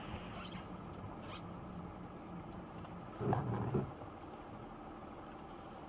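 Faint engine and road noise of a car driving, heard from inside the car through a dashcam, with two short high scratchy sounds about half a second and a second and a half in and a brief low-pitched sound a little past three seconds in.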